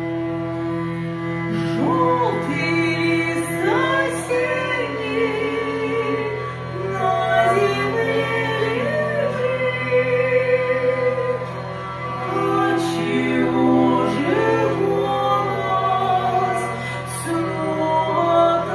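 Hurdy-gurdy playing, its steady low drone held unchanged under a melody, with a woman singing over it.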